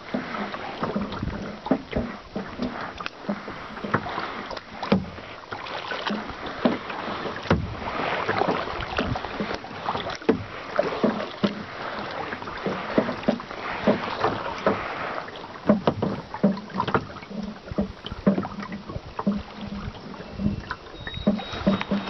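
Kayak paddling: water swishing and splashing with the paddle strokes, swelling and fading over and over, with many small knocks and clicks against the plastic hull.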